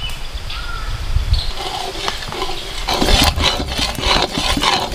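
Masala paste frying in oil in a large kadai. From about three seconds in, a metal spatula stirs and scrapes it in quick, irregular strokes.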